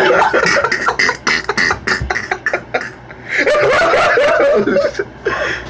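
People laughing hard: a rapid run of short bursts for about two seconds, then a higher, wavering laugh about three and a half seconds in.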